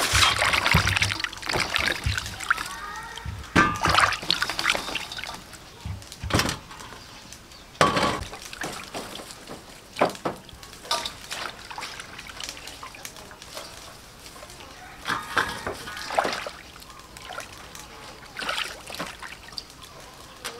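Hands swishing lemongrass, chillies, limes and kaffir lime leaves in a stainless steel bowl of water: irregular splashes and sloshes, loudest at the start, with water trickling and dripping as bunches are lifted out.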